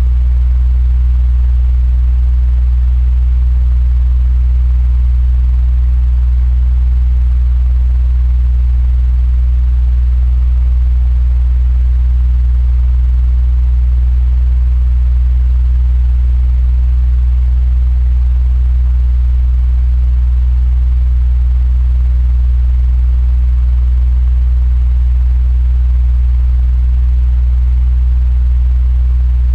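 Electric fan running steadily: a strong, even low hum with a faint hiss of moving air above it.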